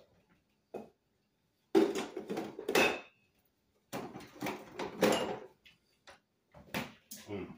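A man huffing breath out hard through his mouth in three noisy bursts about a second each, cooling a mouthful of food that is way too hot.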